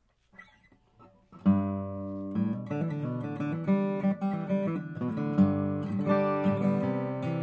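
Bourgeois OMS 12-fret acoustic guitar, Adirondack spruce top with Madagascar rosewood back and sides, being played: a few faint string touches, then about a second and a half in a full chord rings out, followed by further chords and picked notes.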